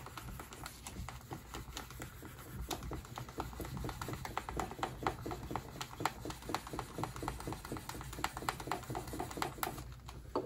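Wooden hand burnisher rubbed rapidly back and forth along the edge of elephant skin backed with tooling leather, a fast irregular run of light rubbing strokes and taps as the edge is burnished.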